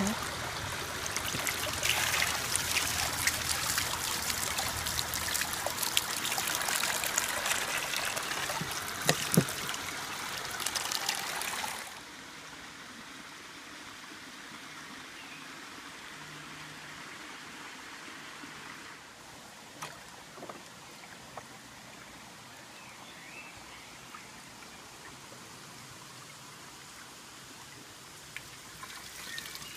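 Water running and trickling through a park's water-play channels and sluice, loud for about the first twelve seconds, then suddenly fainter, with a couple of small knocks.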